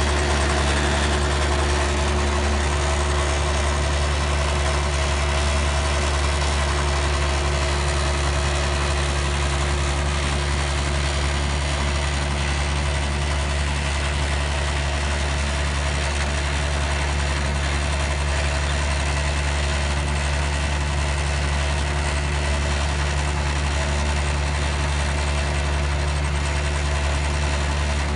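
Engine running at a steady, unchanging speed: a constant low hum with no revving or change in pitch.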